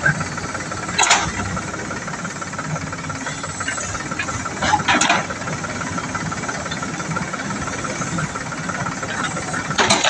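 JCB backhoe loader's diesel engine running steadily while the backhoe arm and bucket work. Two short hissing bursts, about a second in and around five seconds in.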